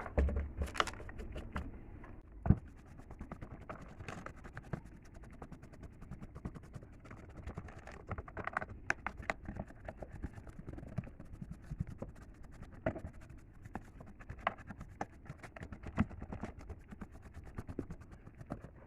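Irregular scratching and rubbing with many small clicks and taps from hand work on a hard surface, with a few sharper knocks along the way.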